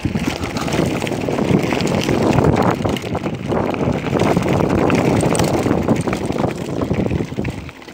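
Mountain bike rolling over a loose rocky gravel trail: tyres crunching on stones and the bike rattling in a dense, continuous clatter.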